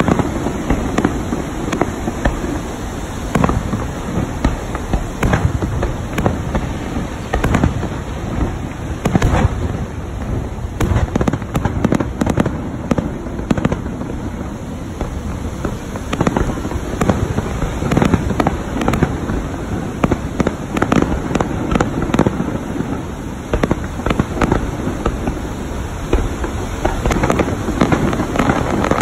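Fireworks display: aerial shells bursting in a rapid, irregular barrage of bangs and crackles, with no pause.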